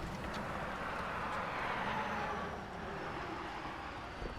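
A vehicle passing by: a steady rush of road and engine noise that swells about two seconds in and fades away.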